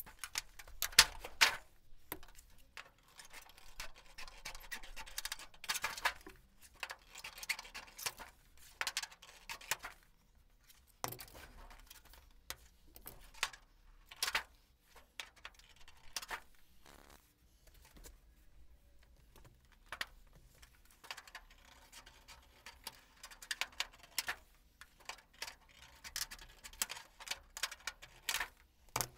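Irregular metallic clicks and light rattling from clecos and cleco pliers, mixed with scraping and handling of the thin aluminium wing skin as it is pressed and worked into place by hand.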